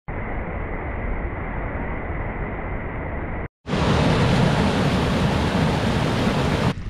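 Steady rushing of water over small waterfalls on a rocky creek. It cuts out for a moment about three and a half seconds in and comes back louder and brighter.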